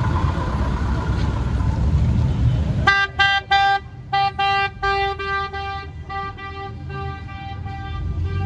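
Car horn honking in a rhythmic run of about a dozen short and longer toots on one steady note, starting about three seconds in. Before it comes the low rumble of idling car engines.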